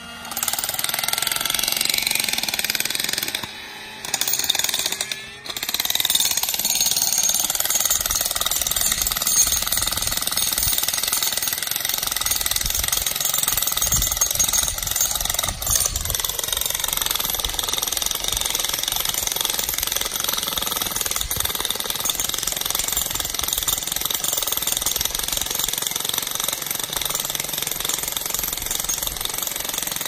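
Jackhammer hammering into rocky ground, running almost without pause, with two brief stops about four and five seconds in.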